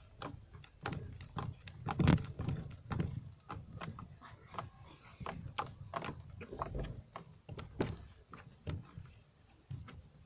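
Slime being squeezed and kneaded by hand, giving irregular sticky clicks and pops, a few a second.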